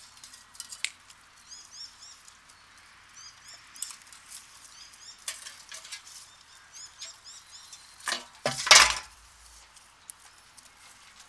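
Dogs eating from metal bowls, with scattered clinks and knocks of metal on metal, and a bird chirping a short call over and over. A loud clatter of several knocks about eight seconds in.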